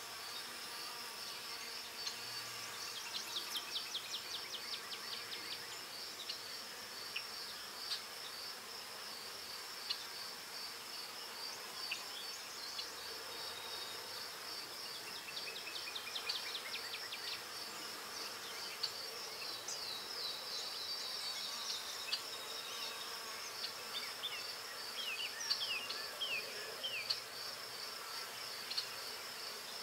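Steady, high, finely pulsing insect trill, with several short runs of quick, high, descending chirps over it.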